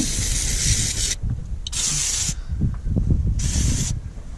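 Aerosol can of engine degreaser sprayed in three short hissing bursts, the first about a second long and the other two shorter, over a low rumble.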